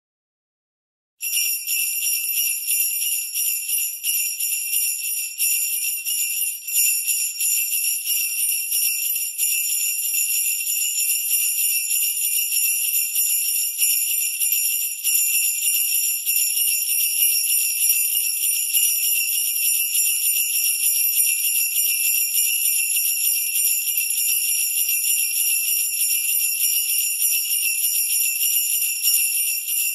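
Sleigh bells jingling in a steady, continuous shake, starting suddenly about a second in: the alarm sounding as the countdown timer reaches zero.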